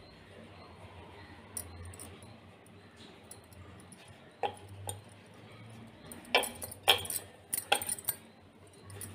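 Metal kitchen utensils clinking against dishes: a pair of light clinks about halfway through, then a quicker run of louder clinks near the end.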